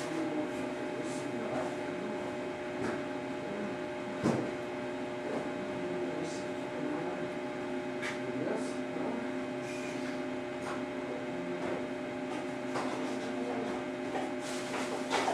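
Steady electrical hum, with a few faint knocks and clatters, the clearest about four seconds in.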